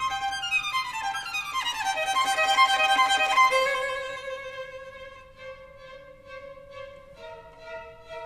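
Background music: a fast run of notes falling in pitch, then softer long held notes, with a new note starting near the end.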